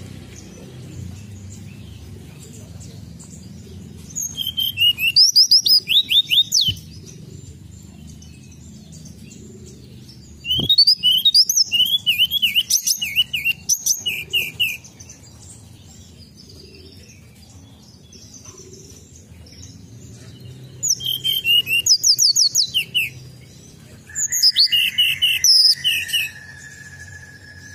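Hill blue flycatcher (tledekan gunung) singing in four bouts of quick, high, sweeping whistled notes, with quieter pauses between them. A steady high tone starts near the end and holds.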